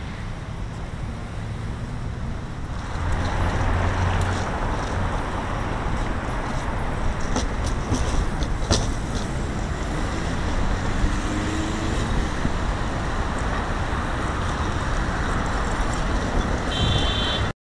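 Road traffic on a busy multi-lane highway, a steady rush of passing cars that grows louder about three seconds in and cuts off suddenly near the end.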